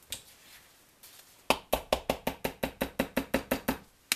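A plastic squeeze bottle of thick cold-process soap batter being banged: one knock, then a quick even run of about fifteen knocks, six or seven a second, and a last single knock near the end. The batter has thickened so much in the bottle that it will hardly come out of the nozzle.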